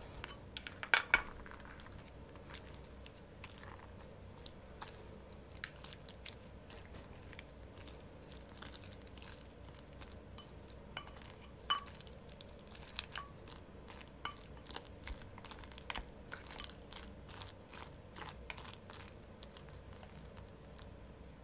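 Wooden chopsticks and a wooden spoon tapping and scraping against a pot while mixing noodles, many light clicks throughout, with a couple of louder knocks about a second in and one near the middle.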